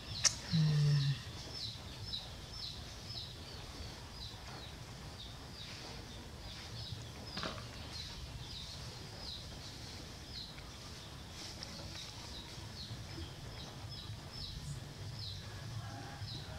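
A small bird chirping over and over, short high chirps about two to three a second. A brief low hum about half a second in is the loudest sound.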